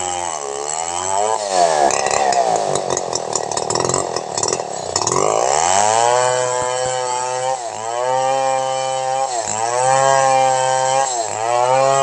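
Stihl MS 500i two-stroke chainsaw running at high revs. For a few seconds near the start its pitch sags and the sound turns rough, as under load in a cut. After that it holds at full revs, dipping briefly three times.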